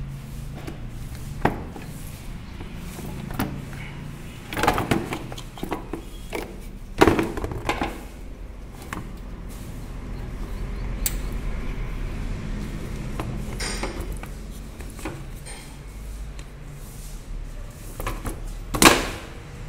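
Scattered knocks, clicks and plastic rattles as a TVS Jupiter BS6 scooter's plastic air filter box is handled and worked loose by hand. There is a louder knock about seven seconds in and another near the end.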